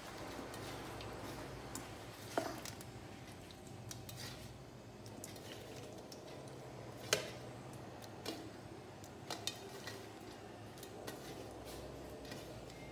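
Hand mixing small fish pieces with masala paste in an aluminium bowl: a few light clinks and taps against the bowl, over a steady low hum.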